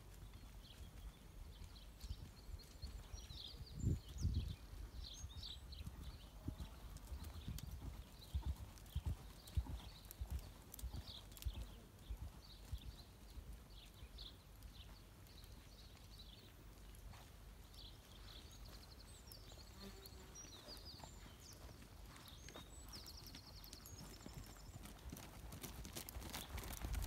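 Hoofbeats of a ridden grey horse on a loose-surfaced arena, a faint uneven patter of dull thuds, growing louder near the end as the horse comes close.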